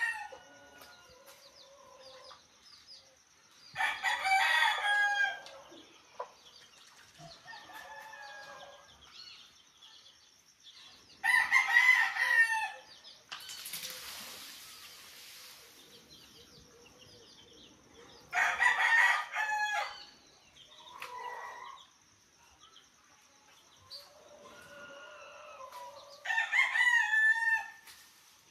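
A rooster crowing again and again, about every seven seconds, with quieter clucks between the crows, over a steady high-pitched hum. A brief rush of hiss comes about fourteen seconds in.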